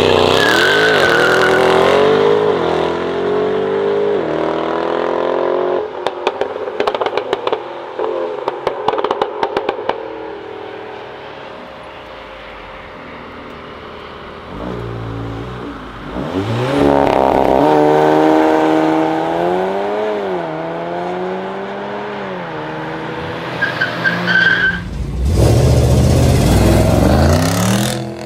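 Mercedes-AMG GT63 S twin-turbo V8 with a decat exhaust accelerating hard, its revs climbing through a gear change, then crackling and popping on the overrun as it pulls away. A Volkswagen Golf then accelerates away with rising revs and a few gear changes, and near the end the GT63 S V8 revs loudly at low speed.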